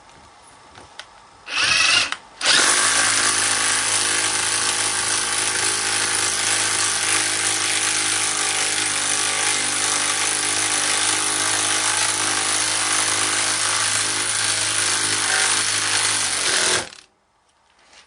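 Festool TI 15 cordless impact driver in impact mode driving a long, thick screw into timber. A short burst comes about a second and a half in, a brief pause follows, then it hammers continuously for about fourteen seconds before cutting off.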